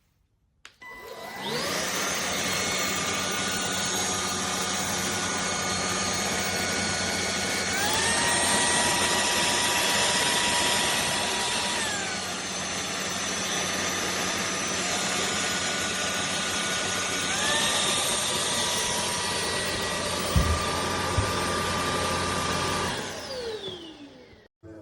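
Cordless stick vacuum cleaner switched on, its motor whine rising as it spins up, then running with a steady whine and rush of air. Its pitch steps up to a higher speed, drops back, and steps up again, as its power setting is changed. It is switched off near the end, the whine falling as the motor runs down, with two light knocks shortly before.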